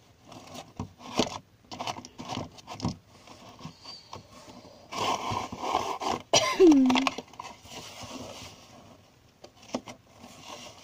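A homemade cardboard tissue-box vending machine being worked by hand: scrapes, taps and clicks as its card slider is pushed and its plastic cap knob is turned. A longer scraping stretch ends in a loud click about six seconds in.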